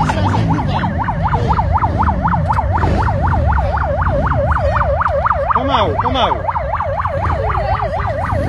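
Electronic emergency siren sounding a fast yelp, its pitch sweeping up and down about five times a second without a break.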